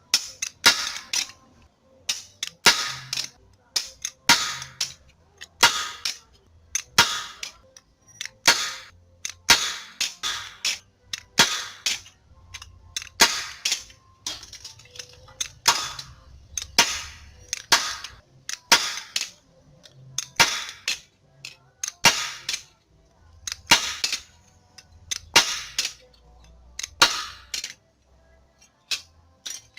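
Hammer striking thin sheet steel, sharp metallic blows in quick pairs and threes at about one or two a second, as a small patch panel is shaped for the Beetle's door-pillar base.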